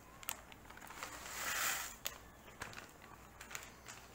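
A block of dried hakka noodles pushed by hand into a pan of hot water: a brief swishing hiss of water about a second and a half in, with a few light clicks and knocks around it.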